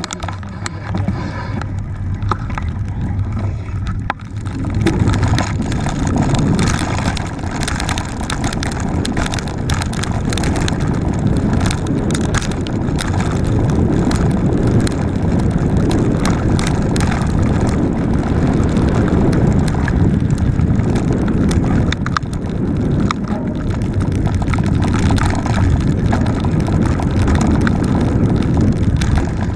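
Mountain bike riding fast down a dirt forest trail: a steady low rolling rumble from the knobby tyres and air on the bike-mounted camera, with many small knocks and rattles as the bike jolts over the bumps. The first few seconds, on smooth asphalt, are quieter before the rumble picks up on the dirt.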